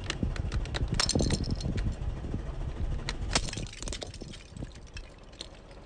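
Plastic 3x3 puzzle cube cracking and snapping apart under a slowly rolling car tyre, its pieces clicking and clattering onto asphalt. A rapid run of cracks comes about a second in and one loud sharp snap about three and a half seconds in, over a low rumble from the car that fades toward the end.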